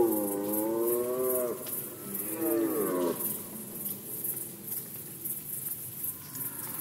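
Red deer stag roaring in the rut: a long roar that ends about a second and a half in, then a shorter roar about two seconds in that drops in pitch as it ends.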